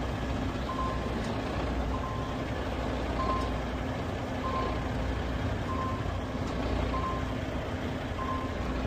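Heavy truck's diesel engine running steadily in a low rumble, with a reversing alarm beeping at an even pace, about one beep every second and a quarter.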